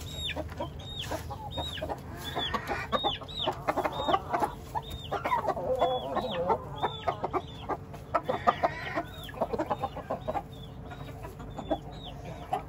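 Chickens clucking and calling while feeding, with a small high chirp repeated about twice a second and scattered sharp clicks.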